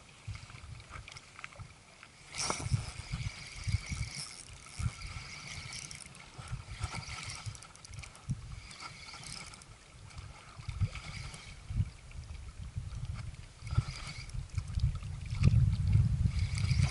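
Shimano Biomaster spinning reel being cranked in spells of one to three seconds, a fine whirring from its gears on the retrieve, over a low, uneven rumble.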